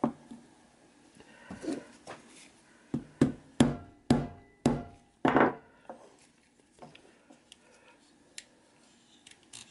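Sharp taps on the metal focusing ring of an SMC Pentax-M 50mm f/2 lens held against a wooden block, knocking the ring back into round after a drop dented it egg-shaped. A couple of lighter knocks come first, then about six quick taps in a row from about three seconds in.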